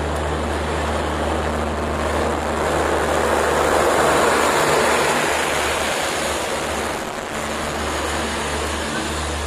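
Passenger train running through at speed: steady rumble and clatter of coach wheels on the rails with a low hum, loudest about three to five seconds in as the rear luggage brake and generator car passes.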